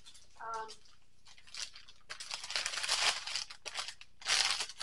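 Packaging being torn open and crinkled by hand, in a few noisy stretches that grow loudest near the end.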